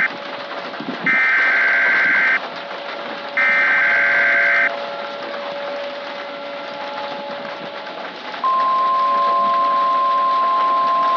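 Emergency Alert System SAME data bursts: three short buzzy bursts of warbling digital tones about a second apart. About 8.5 seconds in, a steady single-pitch alert tone starts and holds, in the style of the NOAA Weather Radio warning alarm tone that comes before a spoken warning.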